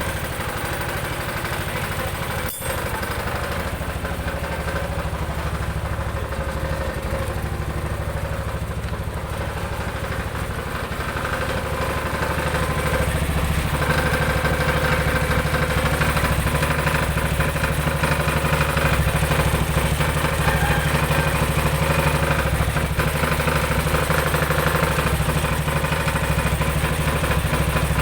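Jialing 200cc engine of a three-wheeled Kaisar motorcycle running steadily, with a brief drop about two and a half seconds in. About halfway through it gets louder and stays so.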